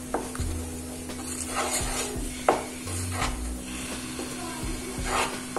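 A spatula stirring and scraping around a non-stick pan of hot milk, sugar and butter, with a few sharper scrapes against the pan, over the light sizzle of the mixture bubbling at the edges.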